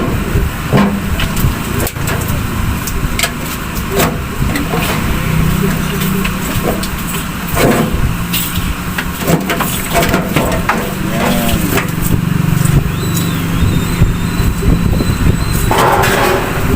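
Metal clicks and knocks of a microwave oven's casing and screws being handled as the cover comes off, with a scrape near the end, over a steady low hum.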